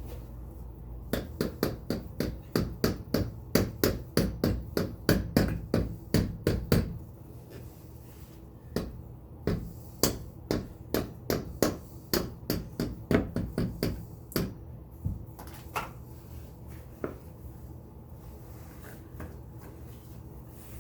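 Hammer striking a crimped metal cap onto the axle end of a Radio Flyer wagon wheel. A quick run of blows, about three a second, lasts several seconds, then slower, spaced blows follow and stop a few seconds before the end.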